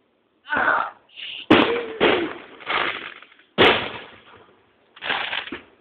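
Aerial fireworks shells bursting overhead: a run of about six sharp bangs over a few seconds, each trailing off in echo, heard through a phone's microphone.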